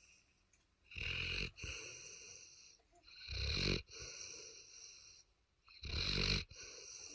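Cane Corso snoring in its sleep: three loud snores about two and a half seconds apart, each trailed by a quieter breath.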